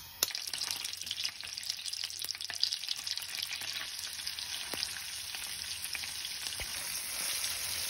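Thin strips of raw beef dropped by hand into hot butter and oil with garlic and sage in a frying pan, sizzling with many small crackles, growing slightly louder toward the end.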